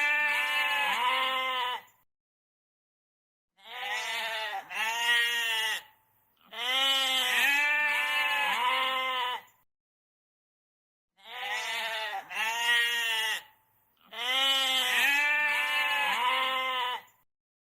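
Goat bleating in a pattern that comes round three times: a long quavering bleat of about three seconds, then a silent gap, then a pair of short bleats in quick succession.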